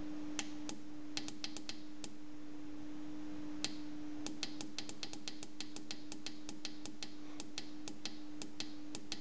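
Small tactile buttons on an STC-3008 digital thermostat clicking under a thumb as the temperature setting is stepped down, first a few scattered clicks, then a quick run of about four or five a second. A steady low hum runs underneath.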